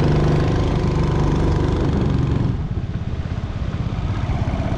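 Mud Skipper 7.5 hp surface-drive mud motor, a single-cylinder four-stroke Hemi engine, running steadily under load as it pushes a jon boat along at about 8 mph. About two and a half seconds in, the engine sound drops in level and turns more pulsing.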